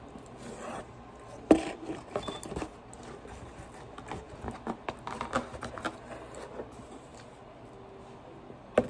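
A sharp click about a second and a half in, then scattered small taps and clicks, and another sharp click near the end: things being handled at the table.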